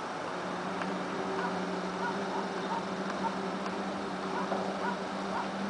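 A low, steady horn-like drone, the deepest sound present, likened to a trumpet or a truck horn, over a background of noise dotted with short high chirps. The uploader puts the other noises down to round-the-clock construction work.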